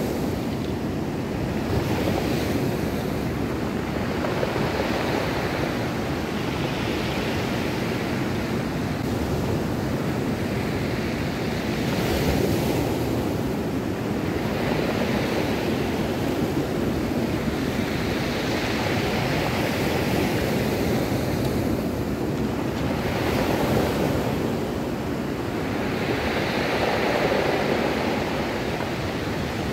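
Ocean surf breaking and washing up a stony shore, the noise swelling with each wave every few seconds, with wind on the microphone.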